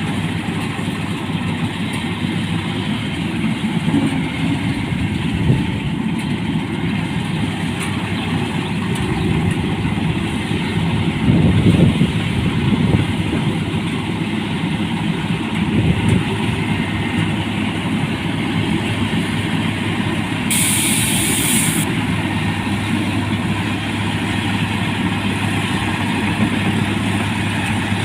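Rice combine harvester's diesel engine running steadily under load, with heavier surges a little before the middle and a short hiss about three-quarters of the way through.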